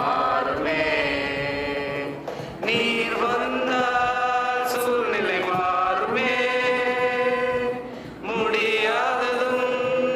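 A youth choir of men and women singing a Tamil Christian worship song together, in long held notes, with short breaks between phrases about two and a half seconds in and again about eight seconds in.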